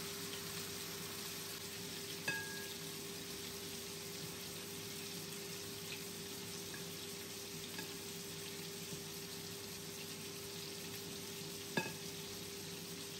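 Marinated pork chops sizzling steadily as they fry in a pan, over a faint steady hum. Metal tongs clink against a glass bowl about two seconds in and again near the end.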